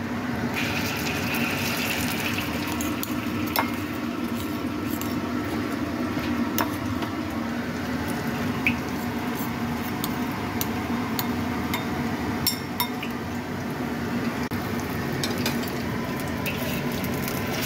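Minced fish paste frying in hot oil in a wok: a steady sizzle with scattered sharp pops and clicks.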